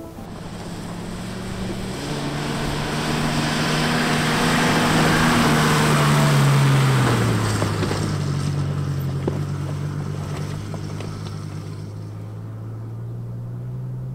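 SUV engine pulling under load up a steep dirt hillside, its note rising and then dropping about seven seconds in, over a rushing noise. It grows louder toward the middle and then fades as the car climbs away.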